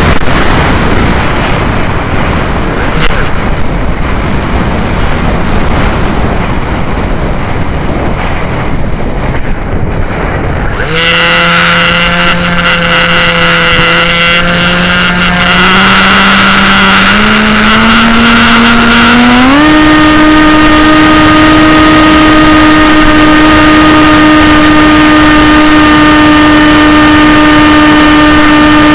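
Wind rushing over the plane's onboard camera microphone while gliding with the motor off, then about eleven seconds in the RC plane's electric motor and propeller start up with a whine that rises in pitch in steps as the throttle is advanced and settles into a steady high-pitched drone.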